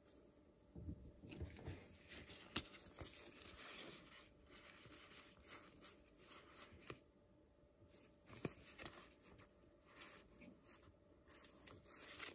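Faint rustling and sliding of a stack of Pokémon trading cards being sorted and fanned out in rubber-gloved hands, with two light clicks as cards tap together.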